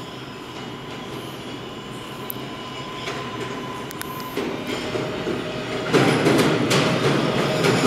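An R188 subway train approaching through the tunnel, its rumble growing steadily louder. About six seconds in it jumps in level, and a quick run of wheel clacks over the rails begins.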